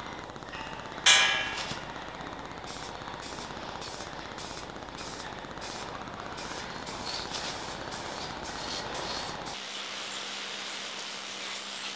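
Aerosol spray paint can hissing in repeated short bursts as a tube-frame aircraft control surface is sprayed. A single sharp knock comes about a second in.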